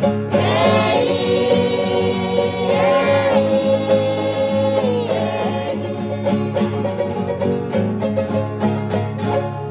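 String band music: an acoustic guitar and a smaller string instrument strummed in a steady rhythm, with singing in long held notes through the first half. The music thins out and fades near the end as the song closes.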